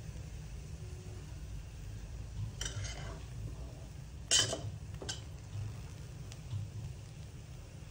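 Perforated stainless steel spatula scraping and clinking against a steel pot as cooked rice pulao is stirred and fluffed, a few separate scrapes with the loudest about halfway through, over a steady low hum.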